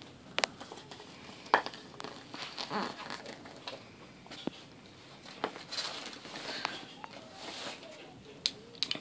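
Small plastic toy pieces of a Shopkins fridge playset being handled: scattered sharp clicks and taps of plastic on plastic, with some rustling in between.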